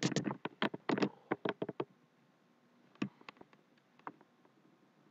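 Quick run of sharp plastic clicks and taps from a ThinkPad laptop being handled, then a few single clicks about three and four seconds in.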